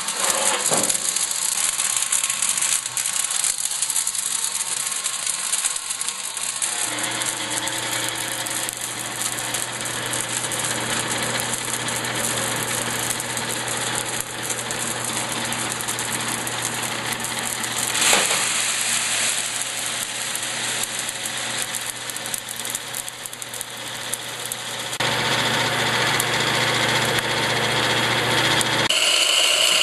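Coffee-making machinery running: a rattling mechanical noise, joined after several seconds by a steady electric motor hum that grows louder near the end.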